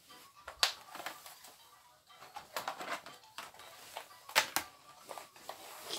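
Clear hard-plastic toy race-car track tubes and connectors clicking and clacking as they are handled and knocked together, with several sharp clacks, the loudest a quick pair about two-thirds of the way through.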